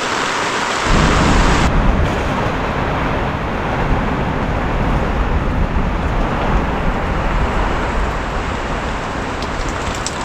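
Heavy rain pouring down steadily, with a deep low rumble that joins in about a second in and carries on underneath.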